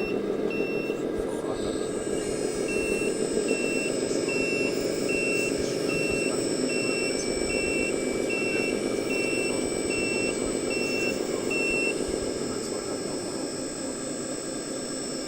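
Reversing alarm of a radio-controlled model truck's electronic sound module beeping at one steady pitch, about three beeps every two seconds, stopping a few seconds before the end, over steady low background noise.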